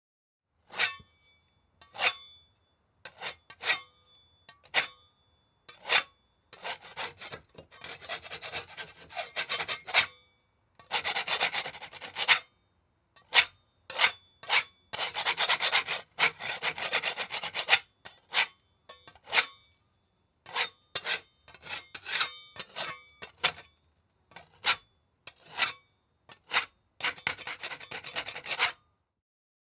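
Putty knife blade scratching and scraping across a surface: single short strokes at first, then longer stretches of rapid repeated scraping, with a faint metallic ring after some strokes.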